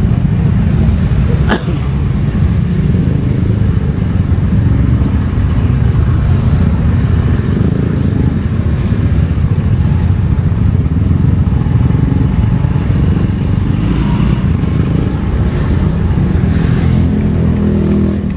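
Motorcycle engines running at low speed in stop-and-go traffic, a steady low rumble with cars mixed in, and a single sharp click about a second and a half in.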